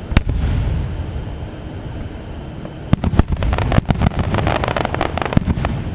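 Aerial fireworks going off: a single sharp bang just after the start, a low rumble, then from about three seconds in a rapid string of sharp bangs and crackles.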